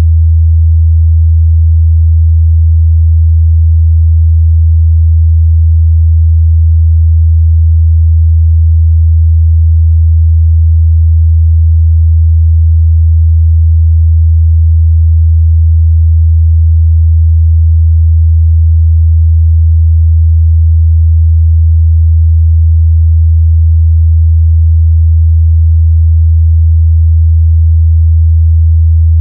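A steady, loud 81 Hz sine-wave test tone, a single low bass hum held at one pitch without change.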